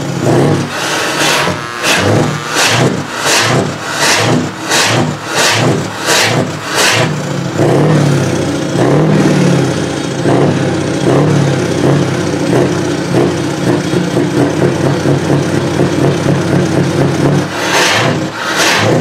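Big truck engine revving through open exhaust pipes, its pitch rising and falling through the middle stretch. A regular sharp beat, about every two-thirds of a second, runs through the first seven seconds and comes back near the end.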